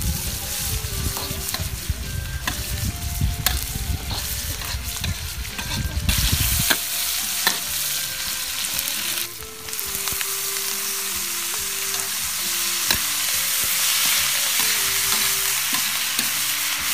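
Food frying in hot oil in an iron wok, sizzling steadily while a metal spatula stirs and scrapes the pan. A low rumble runs under it for the first six seconds and then stops, and the sizzle is denser in the second half.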